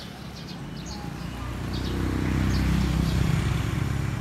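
A motor vehicle's engine passing close by, growing louder over about two seconds and easing off near the end.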